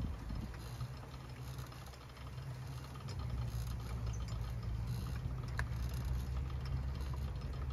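Electric-assist bicycle riding along an asphalt road: a steady low rumble that grows stronger about three seconds in, with light rattling.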